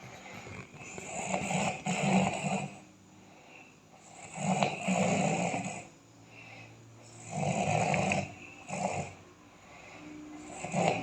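A person snoring loudly, one long snore roughly every three seconds, with a short extra snort after the third.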